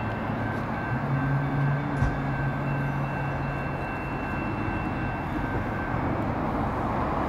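Steady low mechanical hum over an even rushing background noise, with no distinct events.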